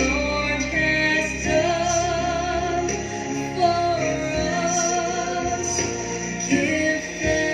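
A prayer song: a woman singing long held notes over a soft instrumental accompaniment.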